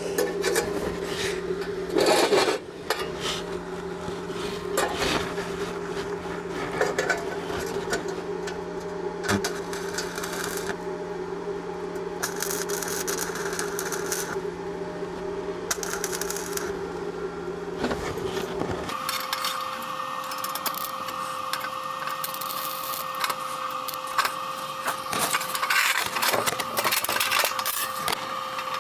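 Steady machine hum whose pitch steps up sharply about two-thirds of the way through, under scattered clicks and knocks.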